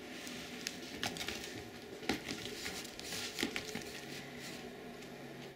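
Bengal cat scrambling on a carpet-covered cat tree: claws scratching and catching in the carpet, with scattered soft knocks and rustles.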